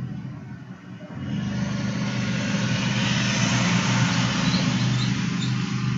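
A steady low hum under a rushing noise like road traffic; the rush swells about a second in and eases off near the end.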